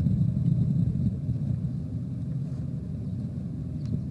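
Wind buffeting the outdoor microphones: a steady low rumble, a little louder in the first second or so.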